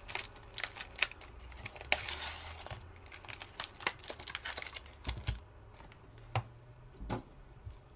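Foil trading-card pack crinkling and tearing as it is opened, with the cards inside riffled and clicked through by hand. Busy through the first five seconds or so, then only a few clicks and a couple of light knocks on the table.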